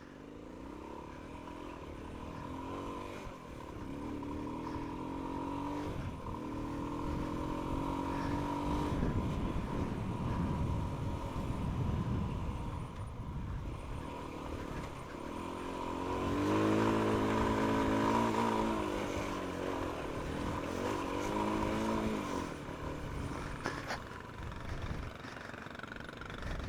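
Motorcycle engines revving and pulling away, their pitch rising and falling as the throttle opens and closes, loudest a little past the middle. A steady high whine sits underneath.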